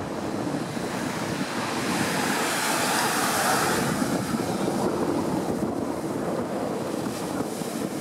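Ocean surf breaking and washing up the sand, with wind buffeting the microphone. The wash swells louder and hissier about two to four seconds in.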